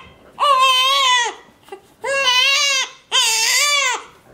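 Newborn baby crying from hunger: three long wails of about a second each, held at a steady pitch, with short pauses for breath between.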